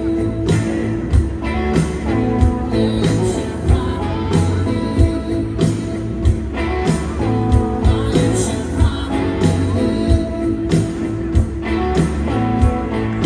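Live band playing a slow song: electric guitar over a steady drum beat and bass, heard as a loud concert mix.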